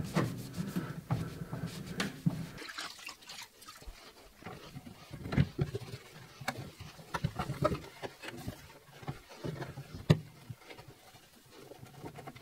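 Damp cloth rubbing and scrubbing across a sheet-metal panel in irregular strokes, with a few short sharp knocks of hand or cloth against the metal.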